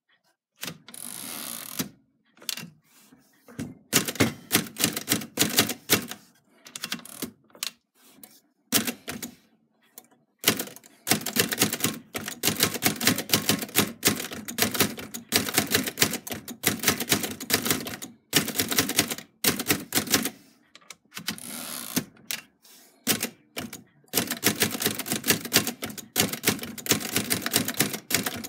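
Manual typewriter typing: quick runs of typebars clacking against the platen in bursts, broken by short pauses. At least once the carriage is returned to start a new line.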